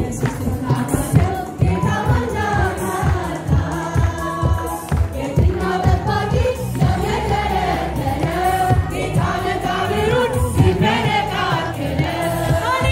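A choir of mixed voices singing a worship song in unison over a steady low beat.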